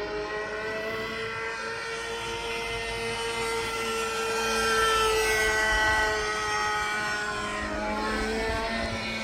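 Electric motor and propeller of a radio-controlled model plane flying overhead, a steady whine that rises and falls in pitch as it passes, loudest about halfway through.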